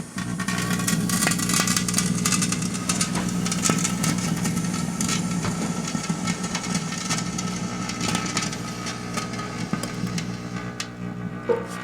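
Microwave oven running with a steady electrical hum while flashing fountain fireworks burn inside it, spraying with a hiss and many sharp crackles. The hiss thins out near the end.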